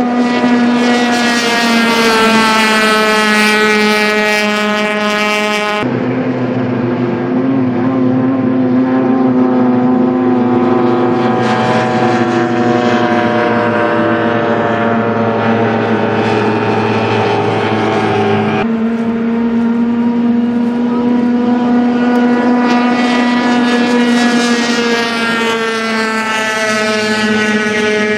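Outboard engines of racing boats running at full speed: a loud, steady, high engine note with many overtones, its pitch slowly falling as the boats pass. The sound changes abruptly about six seconds in and again near nineteen seconds.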